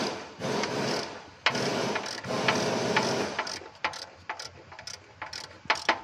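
Socket ratchet wrench clicking in four quick runs as it is swung back and forth on a spark plug of a Subaru boxer engine, followed by scattered separate clicks and knocks of the tool.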